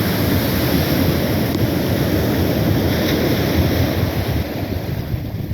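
Wind buffeting the microphone over the steady rush of surf on a beach.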